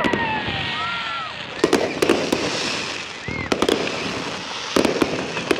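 Fireworks display: groups of sharp bangs and crackles every second or so over a steady hiss of sparks.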